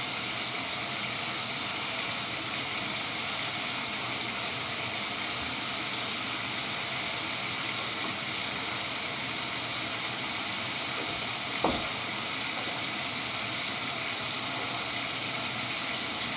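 Steady hiss of water running into a dog-bathing tub while a wet, lathered dog is washed, with one sharp knock about two-thirds of the way through.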